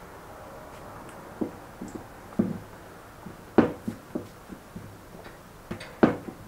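Wooden rolling pin knocking and rolling on a wooden board as a ball of dough is rolled flat: a string of dull wooden knocks, the loudest about halfway through and again near the end.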